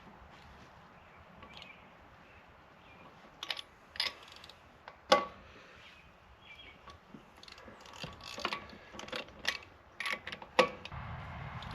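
Wrench and socket on the truck's wheel lug nuts: irregular sharp metallic clicks and clinks as the lug nuts are retightened with the truck's weight back on the tire, starting a few seconds in and bunching together near the end.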